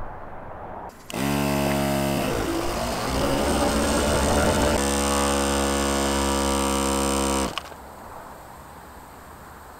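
Portable 12 V tire compressor running with a steady buzzing motor hum, pumping a plastic bottle up to about 7 bar. It starts about a second in, turns rougher for a stretch in the middle and cuts off suddenly about seven and a half seconds in.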